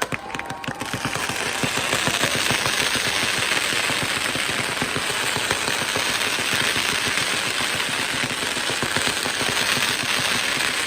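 Fireworks: a dense, rapid rattle of firecracker bangs that builds over the first couple of seconds and then runs on steadily, with a few rising whistles at the very start.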